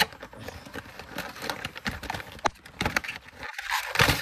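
Cardboard collection box and its plastic tray being handled and pulled apart: irregular taps, knocks and scrapes, with a louder rustling scrape near the end.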